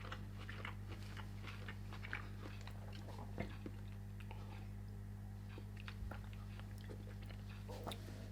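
A person chewing a mouthful with crispy fried garlic close to the microphone: small wet clicks and light crunches, thick for the first three seconds, then sparse. A steady low electrical hum runs underneath.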